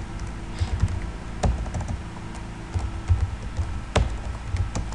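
Typing on a computer keyboard: irregular key clicks with a few louder strokes and low thuds as the keys are struck.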